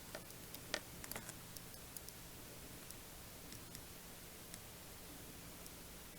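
Faint, scattered small clicks and taps from hand work with tools and small parts on a workbench, the sharpest a little under a second in, over a low steady electrical hum.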